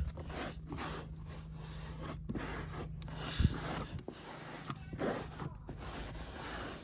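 Microfiber cloth rubbing and scuffing along a minivan's plastic seat track, over a steady low hum, with a single sharp knock about three and a half seconds in.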